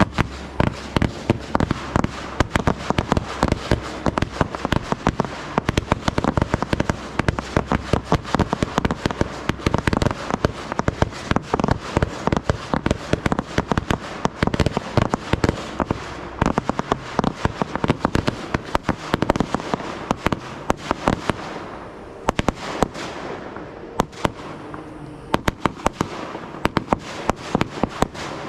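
Fireworks display: a dense, rapid barrage of sharp bangs and crackles, thinning to scattered bangs for a few seconds near the end.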